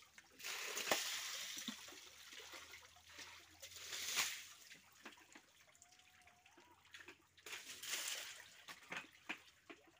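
Water splashing and sloshing as a bucket of pond water is scooped and thrown against a tractor's muddy rear tyre and body. It comes in several separate splashes, the loudest about one and four seconds in and another near eight seconds, with a steady wash of water between.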